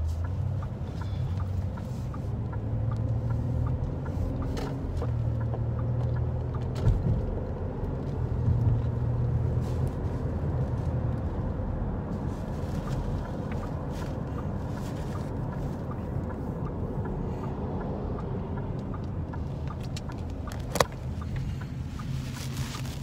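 Car cabin noise while driving: a steady low rumble of engine and road, with a single sharp click near the end.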